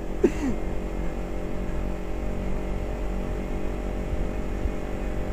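Motorcycle engine running at a steady cruising speed while riding, a constant hum with no change in pitch.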